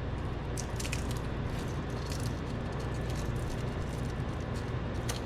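A steady low hum from a small appliance fan, with a few light clicks and crackles from a pan.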